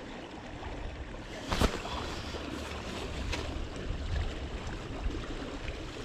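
Steady wind and water noise with a sharp click about a second and a half in and a fainter click near the middle, as a spinning rod and reel is handled and cast.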